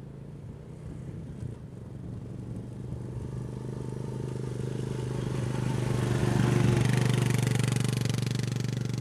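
A motor engine running at steady revs, growing louder over several seconds to a peak about two-thirds of the way through, then easing off slightly.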